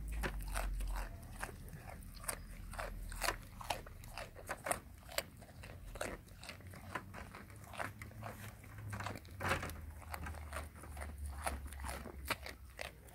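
Goat biting and crunching a thin strip of raw carrot, an irregular run of crisp crunches several times a second. A low rumble sits under the first second or so.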